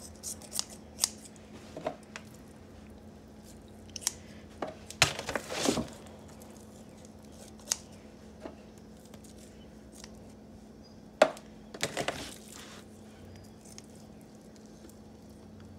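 Kitchen shears snipping fat off raw pork spare ribs: scattered short, sharp snips, with a cluster about five seconds in and another about twelve seconds in, among light handling noises.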